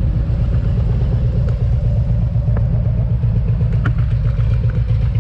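Harley-Davidson Road Glide's V-twin engine running steadily under way, a continuous low rumble.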